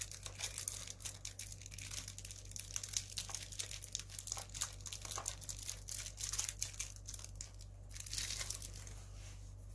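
Small plastic parts packet crinkling and crackling as it is twisted and pulled at, resisting being torn open; a dense run of small crackles that thins out near the end. A low steady hum lies underneath.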